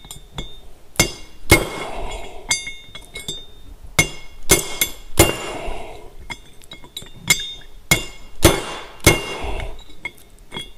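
Ball-peen hammer striking a steel punch to drive a 3/8-inch roll pin out of a cast quick-hitch latch: about a dozen sharp metal-on-metal blows at uneven spacing, each with a short ring.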